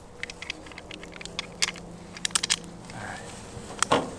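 Irregular sharp clicks and small rattles of hands working the parts of a cheap plastic pistol and handling 9mm cartridges, the loudest clicks just before the end.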